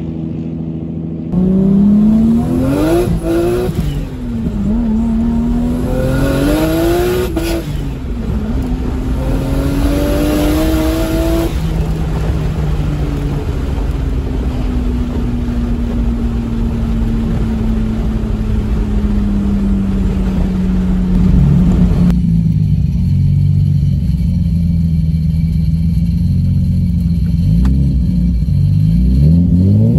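Toyota Soarer's 1JZ turbocharged straight-six heard from inside the cabin under hard acceleration. The engine note climbs three times in quick succession, dropping at each upshift, then holds a long, slowly falling note as the car eases off, and climbs steeply again near the end.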